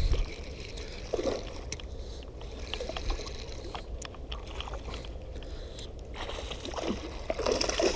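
Ultralight spinning reel and rod being worked while a hooked largemouth bass is reeled in: scattered light clicks and scrapes, with water sloshing.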